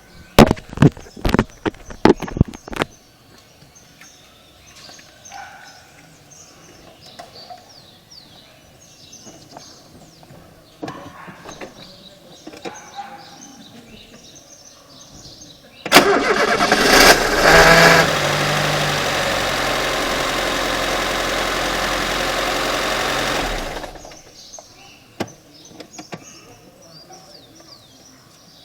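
A quick run of sharp clicks and knocks, then quiet. About halfway through, a Fiat Uno is started: the engine catches with a loud burst, and a harsh, steady noise runs with it for about eight seconds before stopping suddenly. This is the strange noise after starting that the owner puts down to the starter motor.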